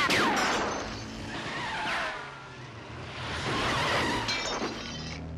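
Car-chase soundtrack: a crash of breaking glass at the start, then the Citroën 2CV's small air-cooled flat-twin engine running hard while its tyres squeal.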